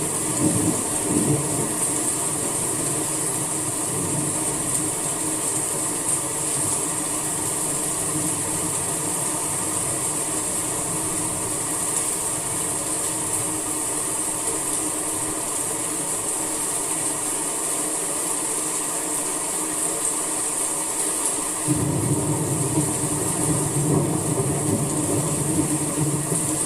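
Steady rain falling, an even hiss. A lower rumbling layer under it fades away through the middle and comes back abruptly about four-fifths of the way through.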